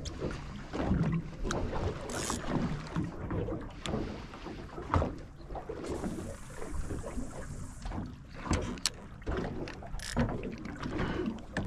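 Knocks and clatter of fishing gear being handled on a small boat, then a cast with a 5000-size spinning reel: the line hisses off the spool for about two seconds, followed by a few sharp clicks from the reel.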